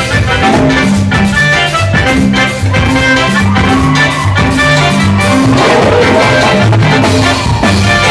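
Live Latin dance band playing loud music, with a stepping bass line, a steady drum beat and sustained melody instruments.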